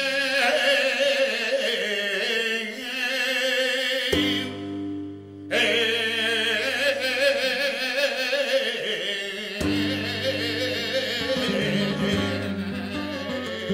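Recorded music from a malagueña: a male voice sings a long, ornamented line with wide vibrato over flamenco guitar. The guitar strikes held chords about four seconds in and again near ten seconds.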